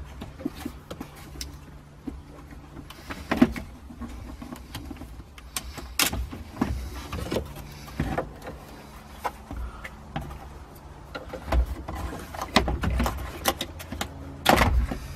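Plastic instrument cluster of a 1989–95 Toyota truck being wiggled out of the dashboard: irregular clicks, knocks and short scrapes of plastic against plastic, over a low steady hum.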